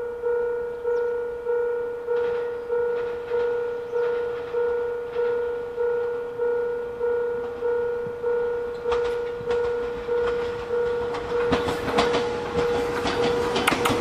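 Railway level crossing alarm bell ringing steadily at about one and a half strikes a second while a JR 115 series electric train approaches. From about nine seconds in, the train's wheels click and clatter over the rails, growing louder as it reaches the crossing.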